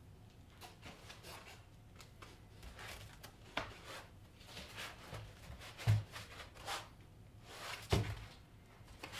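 Large foam packing pieces from a speaker crate being lifted off and handled, a string of short scrapes and rustles, with two dull thumps about six and eight seconds in.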